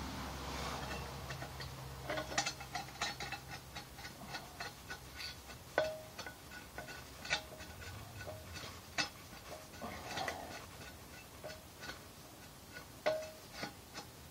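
Hand-operated hydraulic pump worked by its lever, making a string of irregular metallic clicks and ticks, some with a short ring, as it is pumped to build pressure for a test.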